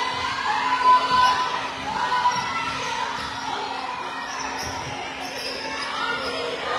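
Basketball game sounds in a gym: the ball bouncing on the hardwood floor, short squeaks and calls from the players on court, and crowd noise.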